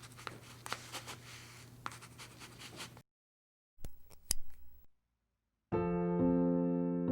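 Short cuts of faint scraping and clicking handling sounds, broken by dead silence, then soft electric piano music starts about two thirds of the way in and carries on.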